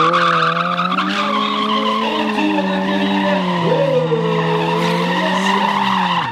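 Stunt motorcycle's engine held at high, fairly steady revs with slight rises and dips, with tyre skid noise on the asphalt as the bike is ridden through a stunt; right at the end the revs drop sharply.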